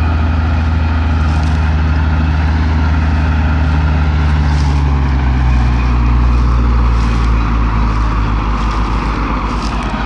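Heavy vehicle engines labouring under load as an MTZ-80 tractor tries to tow a loaded ZIL-130 truck out of mud: a loud, steady low drone that dips slightly in pitch around the middle.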